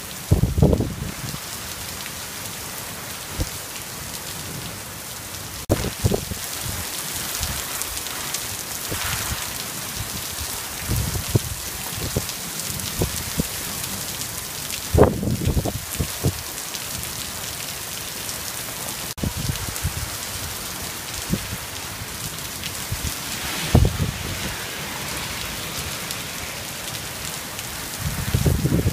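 Torrential monsoon downpour: a steady hiss of heavy rain pouring onto pavement, cars and roofs. Short low rumbling bursts break in every few seconds, the strongest about fifteen seconds in.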